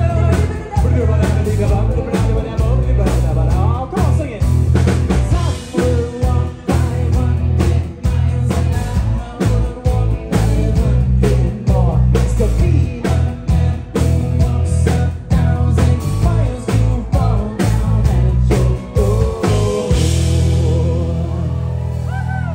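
Live rock band playing: acoustic guitar, bass, drums and singing. About twenty seconds in the drums stop and a final chord is held to close the song.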